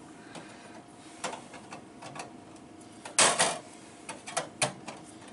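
A small clipper-like nipper cutting and working the sheet-metal knockout plates out of a microwave's back panel: scattered light metallic clicks, then a louder cluster of sharp clicks about three seconds in, and a few more shortly after.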